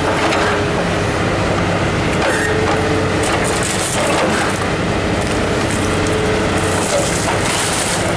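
Heavy scrapyard machinery running, with crunching and crackling of metal as a scrapped truck is handled. The crunching grows stronger near the end.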